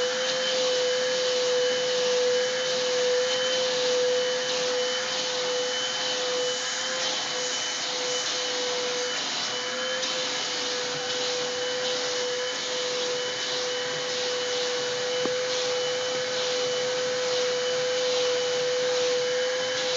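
Vacuum cleaner running continuously with a steady whine over its suction hiss, the nozzle being run over a dog's coat.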